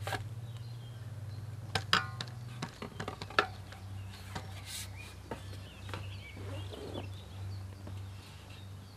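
Sharp clicks and knocks of a carbon fishing pole being handled at the seat box, bunched about two to three and a half seconds in, with a few fainter taps later. A steady low hum runs underneath.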